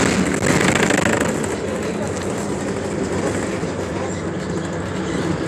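Interior ride noise of a Neoplan AN460 articulated bus under way, heard from the passenger cabin: a steady mix of engine, road and body rattle, somewhat louder in the first second or so.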